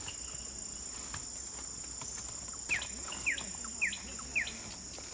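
A steady, high-pitched chorus of insects, with a bird giving four short, downward-sliding whistles about half a second apart a little past halfway through.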